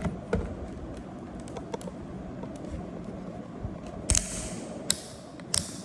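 Quiet room tone with a low hum and scattered small clicks and knocks, handling noise of the probes and meter. Three sharper clicks come near the end, the first followed by a brief hiss.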